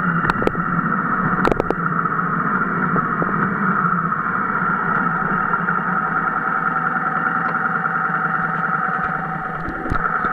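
Motorcycle running steadily on the road, with engine and wind noise throughout and a few sharp clicks near the start.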